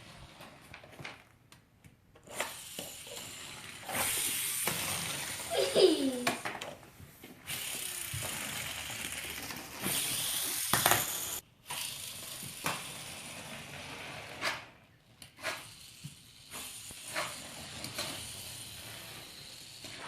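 Small toy racers' wind-up friction motors whirring in hissy spells as they are revved and sent running, with scattered clicks of the plastic toys and a brief voice exclamation about six seconds in.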